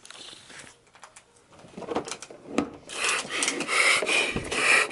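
Rough scraping and rubbing, faint at first, then loud from about three seconds in, as toy packaging is handled and worked at.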